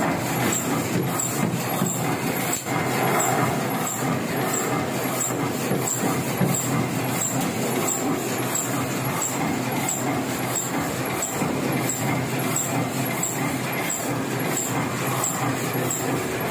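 Printing-shop machinery running steadily, with a regular click about two and a half times a second from the machine's cycle.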